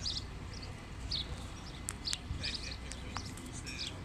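Small birds chirping, a scatter of short high chirps, over a steady low rumble of bus engines running.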